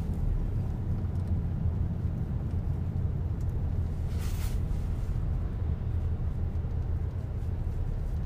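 Steady low rumble of road and engine noise inside a moving car's cabin, with a brief hiss about four seconds in.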